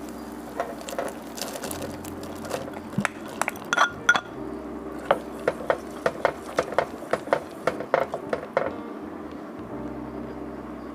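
Wooden spoon tapping and clinking against a glass bowl and a metal pot as dried shrimp are scraped into boiling broth and stirred, over the steady bubbling of the broth. The taps come irregularly and stop a couple of seconds before the end.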